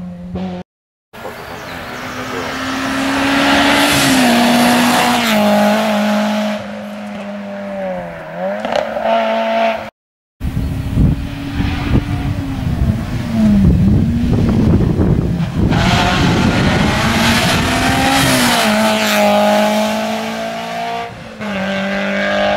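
Peugeot 106 S16 rally car's four-cylinder engine revving hard as it passes at speed, its note climbing and dipping several times. The sound breaks off for a moment twice, about a second in and about ten seconds in, where the footage is cut.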